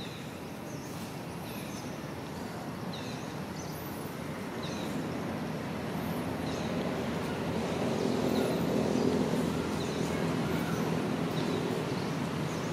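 Outdoor ambience: a low, steady engine-like rumble with a faint hum that grows louder from about halfway through, under short high chirps repeating roughly once a second.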